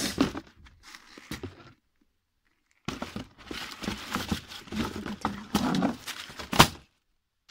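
Clothes and a box of clothing being handled and rummaged through: rustling and crinkling with scattered knocks and clicks, a pause of about a second early on, and one sharp click near the end.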